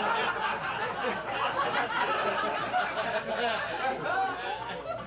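Comedy club audience laughing at a roast joke: a dense mix of many voices at once that eases off a little near the end.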